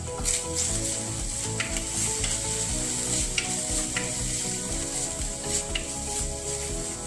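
Ground meat sizzling as it fries in a nonstick pan, stirred with a wooden spatula that scrapes and taps against the pan several times.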